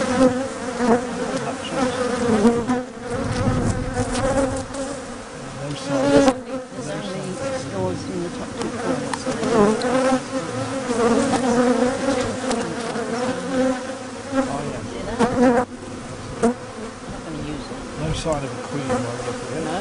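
Honeybees buzzing around an open hive: a dense, steady hum of many bees with a wavering pitch, broken by a few short knocks.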